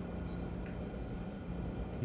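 Steady low machine hum with a few faint steady tones.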